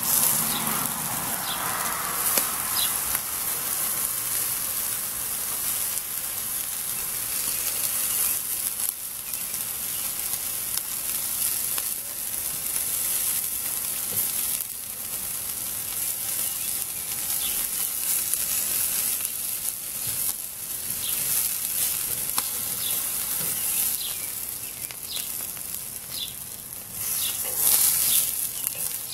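Chicken pieces sizzling on the grate of a charcoal kettle grill: a steady high hiss with scattered small pops and clicks as the pieces are turned with metal tongs. The sizzling swells briefly near the end.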